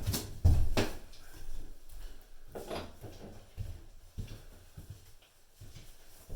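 Scattered knocks and clicks of a shower head and its fittings being handled at the shower arm, the loudest about half a second in.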